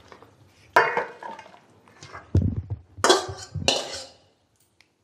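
Kitchen pots and metal utensils clattering: a sharp clank about a second in, then louder clatter about three seconds in.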